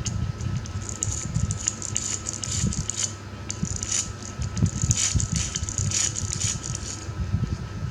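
Small hard objects rattling and clicking irregularly over low rumbling bumps, as when toy cars are handled.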